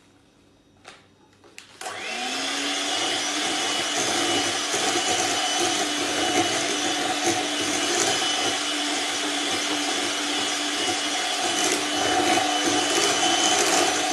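Electric hand mixer whipping a cream mixture in a glass bowl: after a couple of faint taps, the motor starts about two seconds in with a brief rising whine, then runs steadily.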